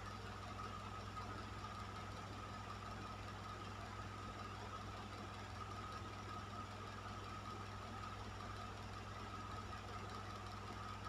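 Electric fan running steadily: an even rush of moving air over a low motor hum, with a faint steady whining tone on top.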